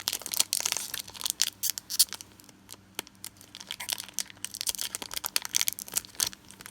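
Foil booster-pack wrapper crinkling and crackling in the hands as it is worked at to tear it open, in quick irregular bursts with a lull in the middle.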